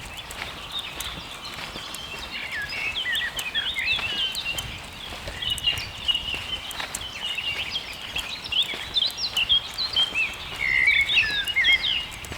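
Songbirds singing in a spring forest: many short, overlapping chirps and whistled glides, busiest towards the end. Footsteps on dry leaves add scattered light crunches and clicks.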